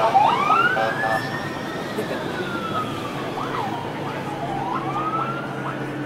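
Emergency-vehicle siren wailing, its pitch slowly rising and falling in long sweeps, with a short horn blast about a second in.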